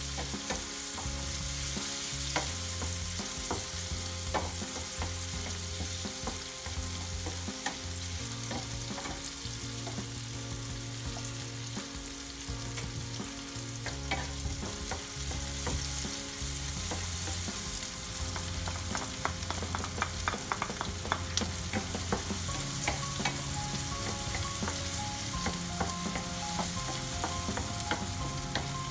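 Diced onion sizzling in hot oil in a nonstick frying pan while a wooden spatula stirs it, the spatula scraping and clicking against the pan. A quicker run of spatula taps comes about two-thirds of the way through.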